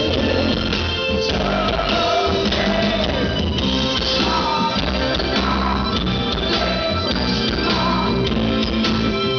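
Live rock band playing loudly with a woman singing lead vocals into a microphone.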